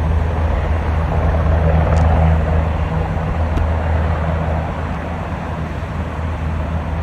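A steady low engine hum under a constant rushing noise.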